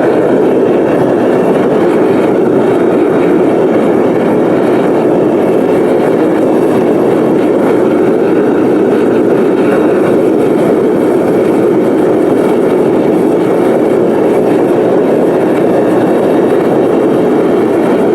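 Furnace burner running steadily at full flame, a loud, even rushing noise, while it heats a melting furnace full of scrap brass.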